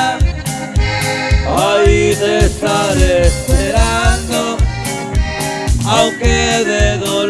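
Live regional Mexican dance band playing: an accordion melody over guitars and bass, with a steady beat.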